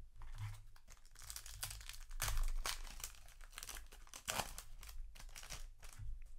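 Foil booster-pack wrapper crinkling and tearing as a Yu-Gi-Oh! pack is ripped open across the top, a run of crackles loudest about two and a half seconds in and again past four seconds.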